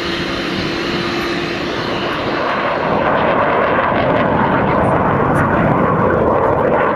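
Jet aircraft engines running at high power as the jet departs, a steady roar that grows louder about three seconds in.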